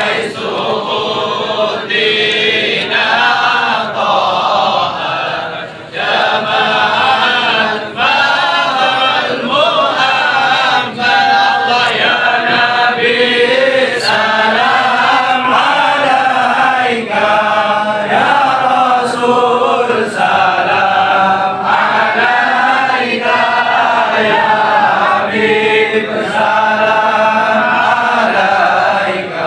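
A crowd of men chanting Islamic devotional verses (sholawat) together in unison, in long sung phrases.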